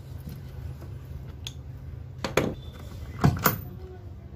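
Metal clinks and clatter of a socket wrench and its socket being handled on the nut of a Lambretta scooter's clutch hub: two short bursts of clinking about a second apart.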